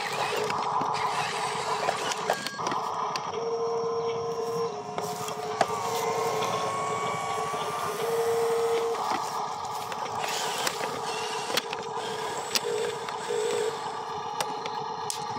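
Electric motor whine of a radio-controlled dump truck as its tipper bed is raised by its screw ram, the pitch rising slightly partway through, with scattered small clicks and rattles.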